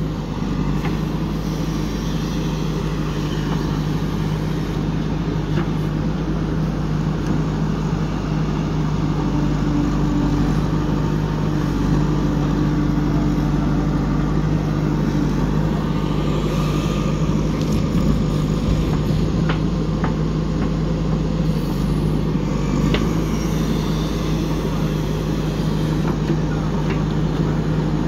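JCB 3DX backhoe loader's diesel engine running steadily under hydraulic load as the backhoe arm swings, dumps and digs, with a few sharp knocks in the second half.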